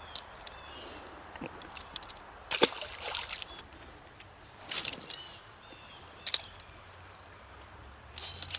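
Shallow creek water trickling, with a few sloshes and splashes of water. Near the end a fishing reel starts cranking with a ratcheting whir.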